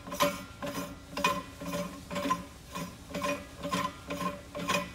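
Steel setting sleeve of a Baker 20 setting tool being screwed by hand onto its adjustment sleeve: metal threads scraping in short strokes, about two a second, each with a faint metallic ring.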